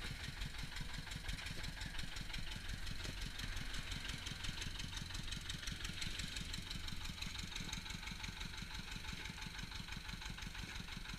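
A stationary engine running steadily with an even, low, repeating thump, driving the sugarcane crusher.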